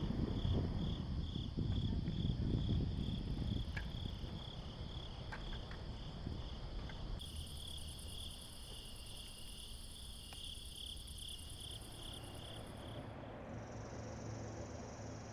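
Crickets and other insects trilling in a steady chorus of several overlapping pulsing high tones. A higher-pitched trill joins about halfway through and gives way to another near the end. A low rumble sits under the first few seconds.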